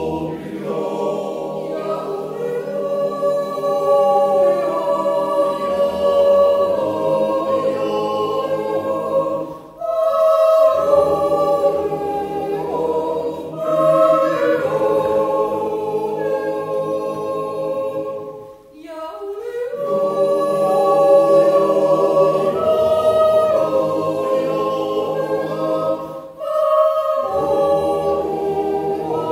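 Swiss yodel club choir singing a cappella in long held chords, with short breaks between phrases about every eight to nine seconds.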